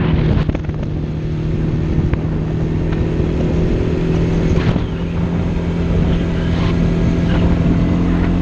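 Quad (ATV) engine running steadily while the quad drives along at an even pace.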